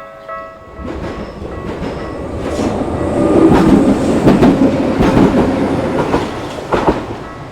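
Railway crossing bell dinging about twice a second, stopping under a second in. Then a Tokyu Setagaya Line train passes over the crossing, its wheels clacking over the rail joints, loudest midway, with a sharp knock near the end.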